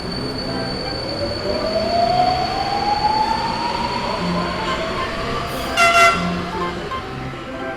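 Train sound effect: steady rolling rail noise with a slowly rising whine, and a short horn toot about six seconds in.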